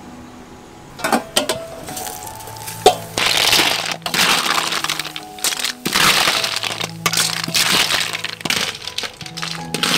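Snails in their shells being stir-fried in a wok and stirred with a metal wire strainer: shells clattering and clinking against the metal over crackling and sizzling, starting about three seconds in.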